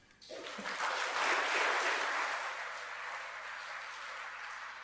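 Audience applauding. It swells within the first second or so, then slowly dies away.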